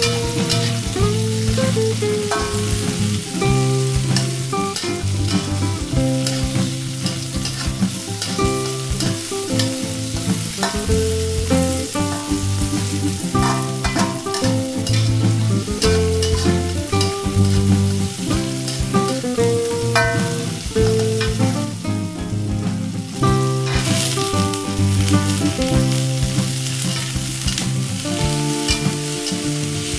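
Chopped chillies, shallots and tomato sizzling in hot oil in a wok while a metal spatula stirs them, scraping and clinking against the pan. Steady held notes, like instrumental background music, run underneath.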